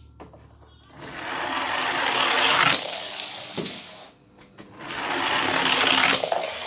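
Toy cars rolling and rattling down a large tube in two runs. The first run grows louder from about a second in and ends with knocks around three to four seconds. The second starts about five seconds in.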